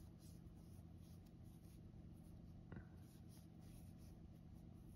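Near silence: faint scratchy rubbing of a crochet hook working yarn, over a steady low hum, with one soft tick a little under three seconds in.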